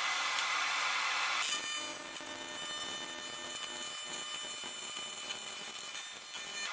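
AC TIG welding arc on aluminium sheet, a steady buzzing hiss. About a second and a half in it settles into a more even, constant buzz.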